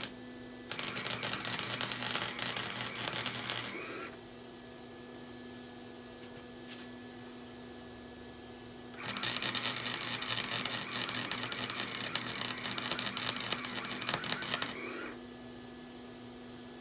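Flux-core wire welder crackling and sizzling as steel exhaust pipe is welded, in two runs: a bead of about three seconds, a pause, then a longer bead of about six seconds.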